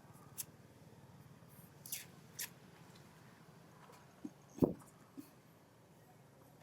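A few short, scattered clicks and ticks and one louder soft thump about four and a half seconds in, over a faint steady low hum.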